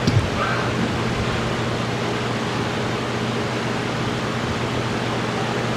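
Steady hiss with a low electrical hum underneath, from the recording's background noise. There are a couple of small knocks right at the start.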